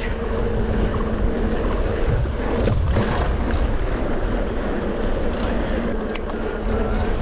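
Wind buffeting a bike-mounted camera's microphone with the tyre hum of a mountain bike rolling on pavement, a steady low rumble, with a sharp click about six seconds in.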